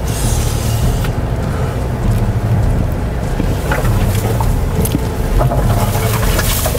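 Jeep Wrangler Rubicon engine running at crawling speed while branches and brush scrape and rattle along the bodywork and the roof rack, with a few sharp knocks.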